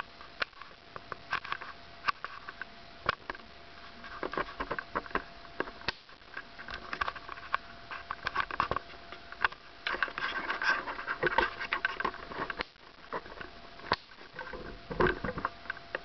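Irregular clicks and rustling from handling a video camera as it is zoomed and re-aimed, with a faint steady tone underneath. The rustling is busiest about two thirds of the way through.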